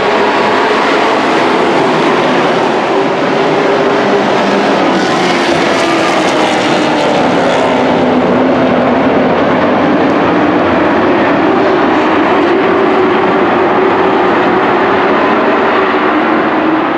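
A pack of race pickup trucks running together, their engines blending into a loud, steady drone, with the engine pitch wavering up and down.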